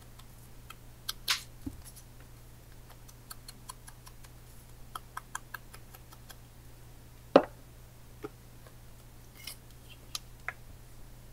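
Light tapping and dabbing of a small ink pad around the edges of a paper collage: scattered soft clicks and ticks. There is one sharp click about seven seconds in.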